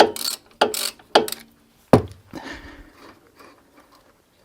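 A few sharp metallic clicks and knocks of a wrench working the guide bolts of a Lada Vesta's front brake caliper, the loudest about two seconds in, then faint scraping that dies away near the end.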